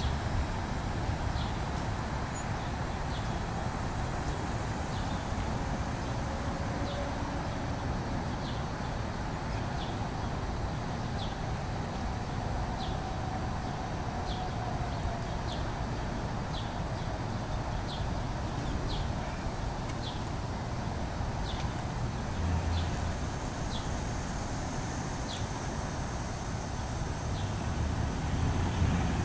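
Outdoor ambience with wind rumbling on the microphone, a little stronger in gusts near the end, while a bird gives a short high chirp about once a second.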